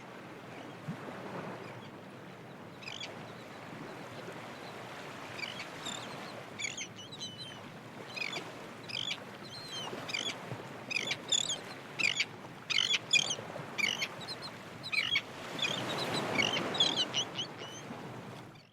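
A flock of birds calling in many short, high chirps that grow busier and louder toward the end, over a steady rushing background.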